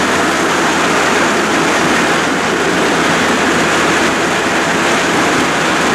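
Wheels of a small rail vehicle rolling along the old, overgrown rails of a disused railway line, making a loud, steady running noise.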